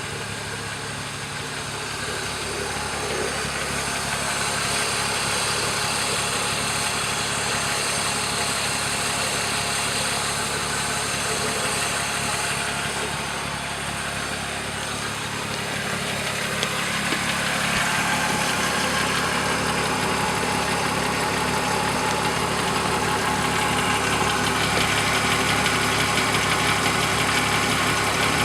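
BMW E36 M3's S52 straight-six idling steadily, with a rattle from the front of the engine that the owner suspects may be the timing chain. The sound grows louder and brighter about two-thirds of the way through.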